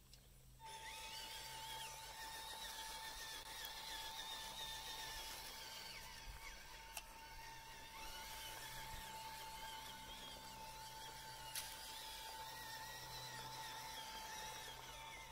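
Whine of a radio-controlled scale truck's small 180-size electric motor and transmission as it drives. A steady high tone starts about half a second in, with a fainter wavering whine above it.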